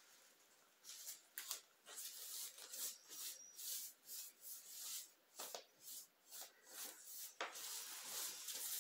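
A run of short, light rubbing strokes, about two or three a second, starting about a second in.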